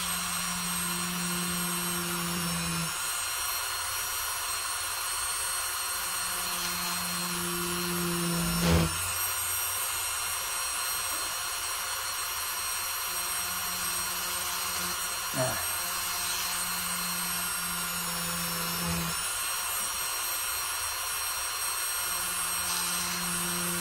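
Dremel rotary tool running steadily with a small drill bit, boring a jump-ring hole through a polymer clay pendant. A low hum fades in and out every few seconds, with a brief knock twice.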